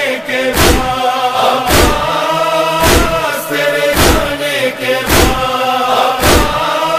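Chorus of voices humming and chanting a sustained noha melody, with sharp chest-beating (matam) thumps in a steady beat about once a second, six strokes in all.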